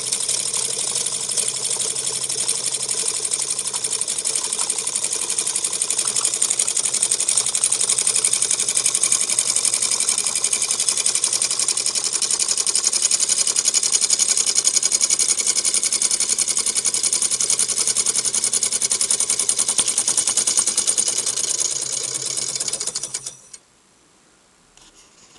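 Homemade high-speed hybrid hot-air (Stirling-type) engine built from tin cans, running fast with a steady rapid mechanical clatter. It stops abruptly near the end, leaving a few faint clicks.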